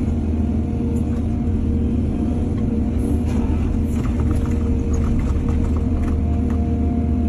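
Diesel engine of a hydraulic excavator running steadily under work, with a run of light clicks and rattles from about three to six seconds in.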